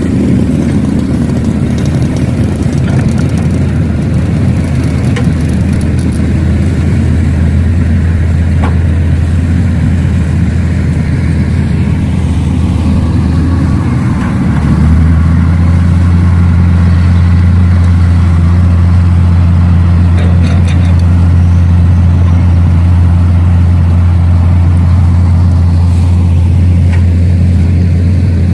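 A steady, low, engine-like drone that becomes louder and heavier about halfway through, with a few faint clicks over it.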